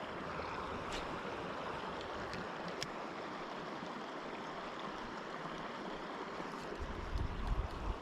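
Creek water rushing steadily over rocks, with a few sharp clicks and a low rumble near the end.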